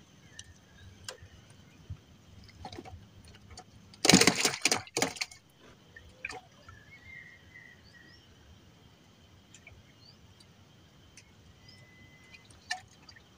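A loud clatter about four seconds in, lasting about a second with a short break, from tackle being handled in a small wooden canoe. Otherwise quiet, with a few faint clicks and short chirps.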